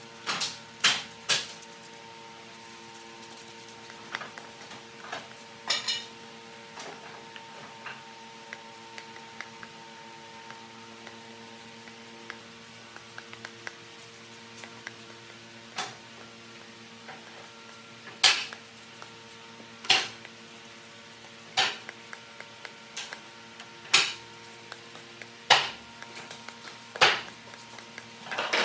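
Irregular sharp knocks and clinks, as of hand tools tapping or being set down on wood and metal, a cluster near the start, then about one every one and a half to two seconds in the second half, over a steady low hum.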